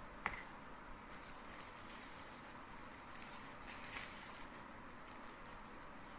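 Faint handling noises: a sharp click just after the start, then soft rustling that is loudest about three to four seconds in.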